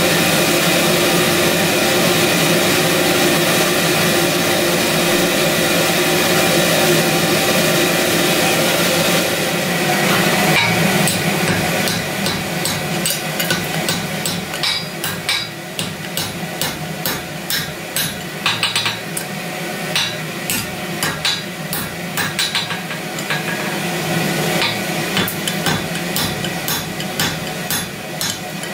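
A forge running with a steady loud rush, then, from about twelve seconds in, the hot end of a round steel bar being jumped down onto the anvil face again and again to upset it: sharp knocks about twice a second, unevenly spaced.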